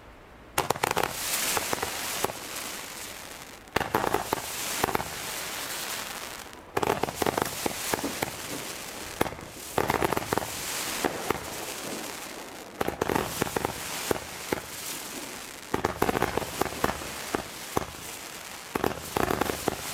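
Röder 'Wirbelwind' bundle of 12 mm roman candles firing: a shot about every three seconds, each followed by dense crackling from the stars as they burst.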